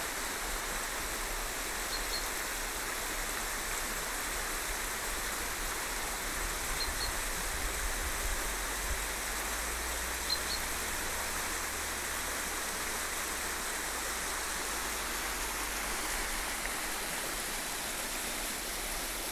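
Shallow river rushing over stony riffles: a steady, unbroken rush of water.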